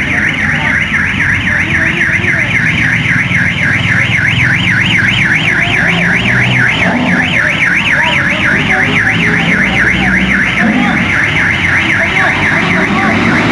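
Electronic alarm siren at a toll-booth lane, warbling rapidly up and down about four times a second and sounding continuously, with low traffic rumble beneath.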